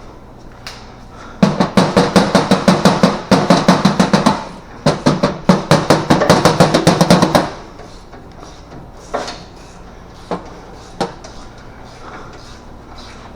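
Impact wrench hammering on a suspension bolt in two bursts of about three seconds each, a rapid rattle of blows, followed by a few single clicks of metal tools.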